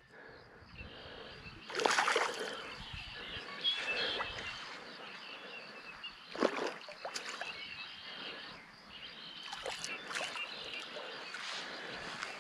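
A hooked fish splashing at the pond surface on a tenkara line, in a few short splashes spread through, over a steady outdoor hiss.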